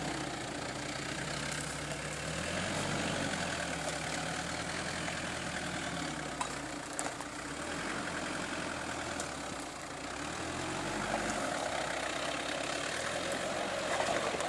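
Mitsubishi Pajero's 2.8-litre engine running at low revs, steady with small rises and falls in pitch.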